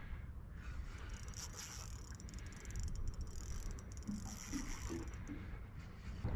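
Spinning reel clicking rapidly under load, with a hooked salmon pulling on the bent rod.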